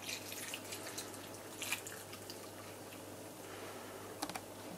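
Dark imperial stout pouring from a glass bottle onto chopped vegetables in a slow cooker: a faint splashing trickle with a few sharper drips, a couple of them near the end.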